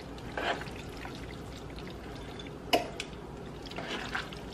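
Fettuccine in creamy Alfredo sauce being tossed with metal tongs in a nonstick pot: soft, irregular wet squelching. A sharp clack comes a little past halfway, with a lighter one just after, as the tongs knock against the pot.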